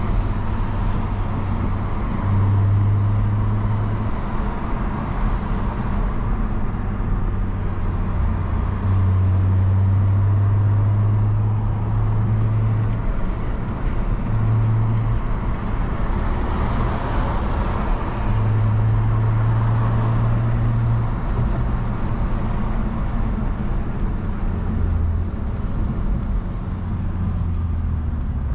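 Mercedes-Benz Brabus CLS heard from inside the cabin while cruising: steady tyre and road noise with a low engine hum that swells and eases several times.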